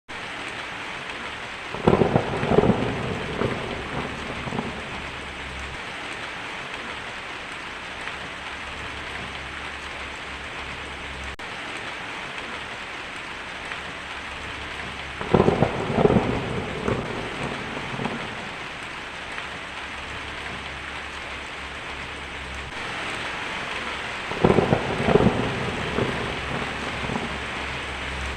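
Heavy rain falling steadily on a tin roof, with three rolls of thunder lasting a couple of seconds each: about two seconds in, about halfway through, and near the end.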